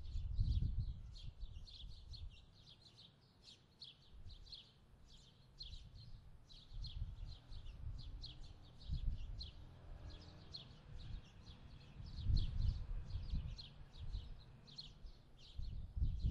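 A small bird chirping over and over, short high chirps at about three a second, over a low rumble that swells and fades.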